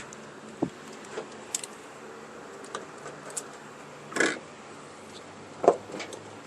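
Hands working on wiring with tape: scattered light clicks and rustles, a short rasping noise about four seconds in and a sharp knock a second and a half later. No horn sounds.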